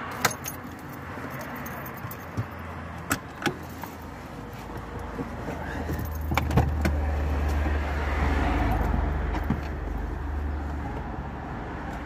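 Small metallic clicks and jangles of a seatbelt buckle and keys being handled inside a parked car, with several sharp clicks over the first seven seconds. From about four seconds in, a low rumble builds up underneath.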